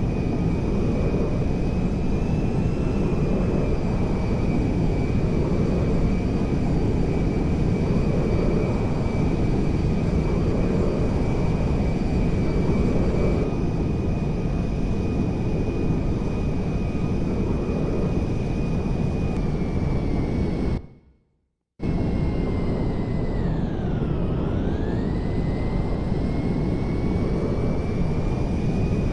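Airplane engine running steadily with a constant high whine. It cuts out briefly about two-thirds of the way in, and after it the whine falls in pitch and rises back.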